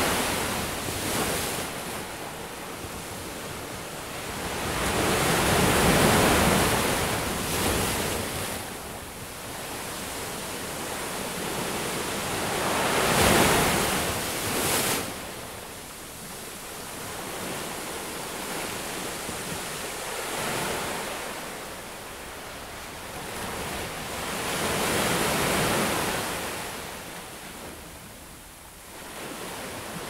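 Ocean surf breaking on a beach: a steady wash of water that swells with each wave about every six seconds, the biggest wave a little past the middle.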